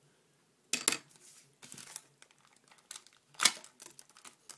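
Packaging crinkling and rustling as it is handled during an unboxing, with a few sharp clicks: a pair about a second in and the loudest about three and a half seconds in.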